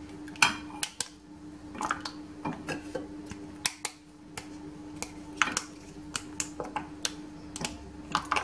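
A bar of white chocolate being snapped into squares by hand: a quick irregular run of sharp snaps and clicks, over a faint steady hum.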